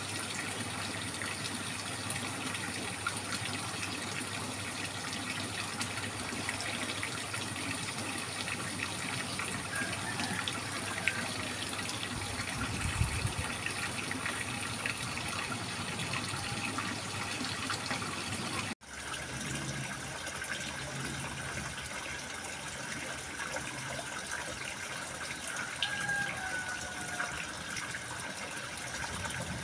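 Water babbling and splashing steadily, like a small stream or trickling outflow. It cuts out for an instant about two-thirds of the way through and then carries on.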